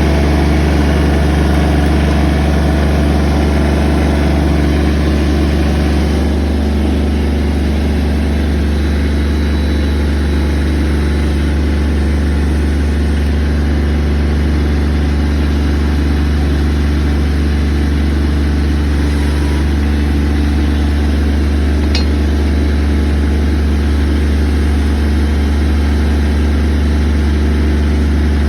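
An engine running steadily at idle, a deep, unchanging hum.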